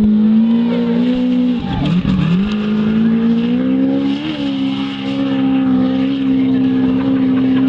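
Off-road race vehicle's engine running hard at high revs, dropping briefly about two seconds in as the throttle comes off, then pulling back up and holding a steady high pitch.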